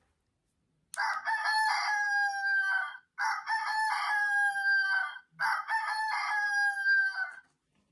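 Toy rooster from a My Life As doll farm play set playing its electronic rooster crow three times in a row, each crow about two seconds long.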